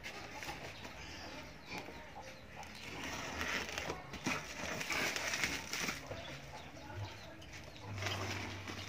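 Bubble wrap around a cardboard parcel rustling and crinkling in irregular soft bursts as hands turn it over and rub across the plastic.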